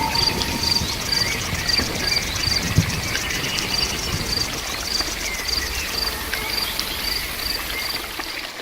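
Steady rain with an insect chirping in a regular high pulse, about twice a second.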